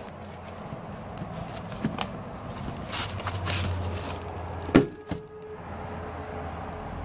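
Cardboard bait boxes being handled by hand: flaps and boxes rustling, sliding and knocking, with one sharp thud a little before five seconds in.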